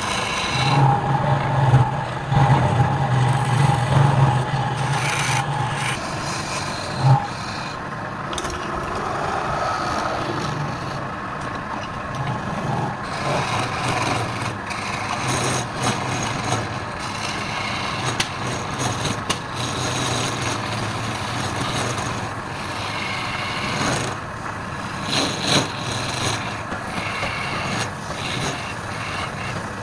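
Wood lathe running, with a tool or abrasive scraping against the spinning wood. A steady motor hum sits under the scraping for the first several seconds, then fades back.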